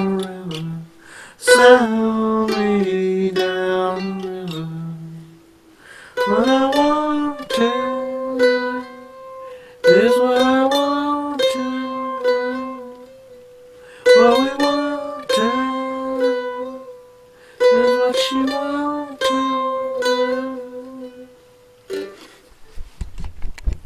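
F-style mandolin played, picked chords and single notes ringing out in a phrase that repeats about every four seconds. The playing stops near the end, followed by a few low knocks.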